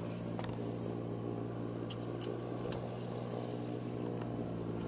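A steady low mechanical hum, like an engine running nearby, with three light clicks about two seconds in.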